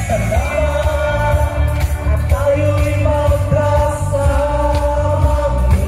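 Loud dance music with a singing voice, played over a PA sound system, with a strong, steady bass.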